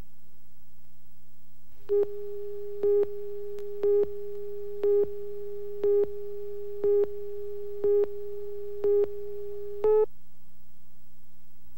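Countdown beeps from a broadcast tape slate: nine short, identical tone beeps about a second apart, the last one slightly louder and higher, over a steady low hum.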